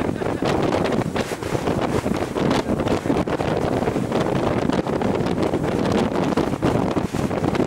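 Wind buffeting the camera microphone: a steady rush of noise broken by frequent short buffets.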